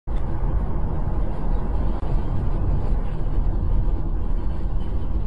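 Steady road noise of a moving car picked up inside the cabin by a dashcam microphone: a low engine and tyre rumble that starts abruptly.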